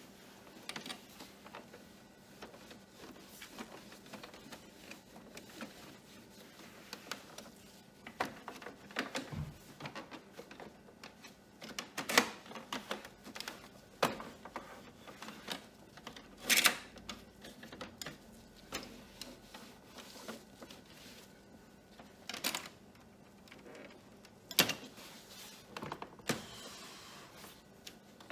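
Cloth wiping and rubbing over the plastic casing of an all-in-one printer, with scattered light taps and clicks of hands and cloth on the plastic and a few sharper knocks.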